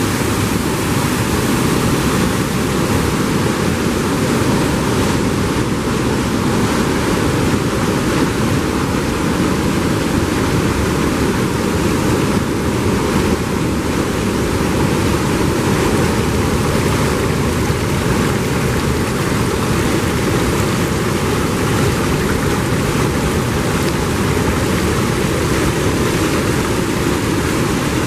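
Steady, loud rush of river water pouring down a rocky waterfall and splashing over cascades.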